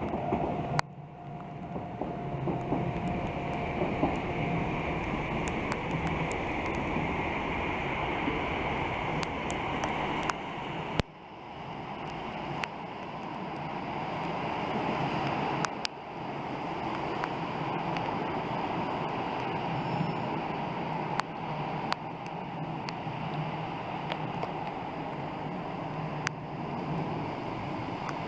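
Trains running past with a steady rushing rumble and scattered clicks, broken by abrupt cuts twice.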